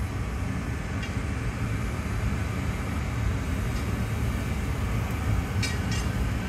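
Steady low rumbling roar of a glassblowing studio's running gas furnace and fans, with a few faint clicks near the end.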